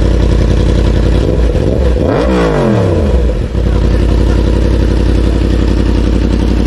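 Yamaha MT-10's crossplane inline-four engine idling steadily, blipped once about a second in: the pitch rises and falls back to idle within about two seconds.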